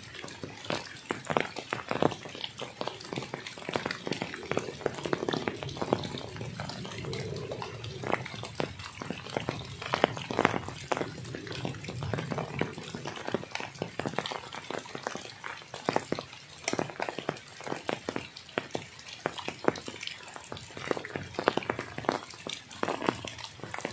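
Heavy rain falling, with many sharp, irregular raindrop hits close to the microphone over a steady hiss of rain on water.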